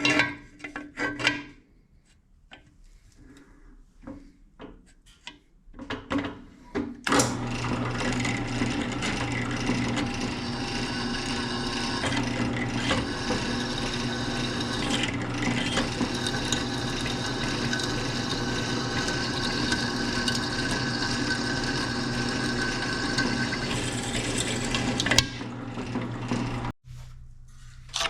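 Drill press drilling a hole in a cast-metal vise body for its clamp screw: a few clicks and knocks of handling, then the press is switched on about seven seconds in and runs with a steady hum for some twenty seconds before it cuts off suddenly, followed by a single knock.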